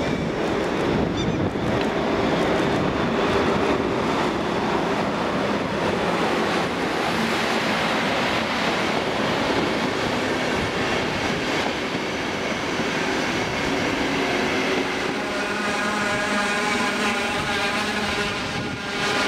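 Electric-locomotive-hauled passenger train rolling past at steady speed: a continuous rumble and rattle of coach wheels on the rails. About fifteen seconds in, a steady squealing tone joins in.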